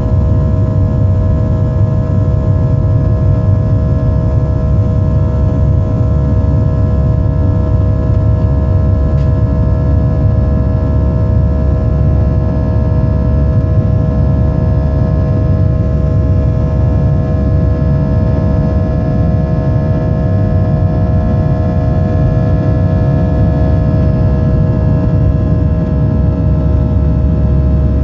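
Boeing 737-600's CFM56 turbofan engines at climb power, heard inside the cabin after take-off: a steady loud rumble with a constant hum of engine tones on top.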